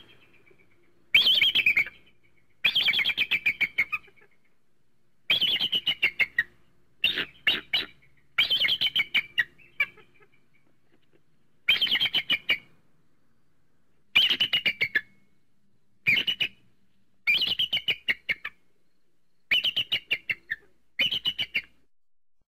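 Bald eagle calling: repeated bouts of rapid, high-pitched chattering notes, each bout dropping slightly in pitch, about a dozen bouts with short pauses between them.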